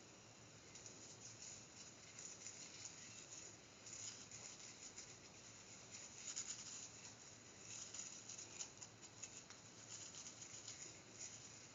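Faint, irregular crackling of a wheat flatbread cooking in a hot pan, with clarified butter sizzling on it as it is spread with a spoon.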